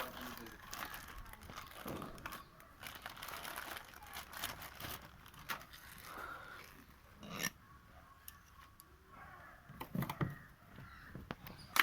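Scattered clicks, knocks and rustling of things being handled, with faint voices in the background.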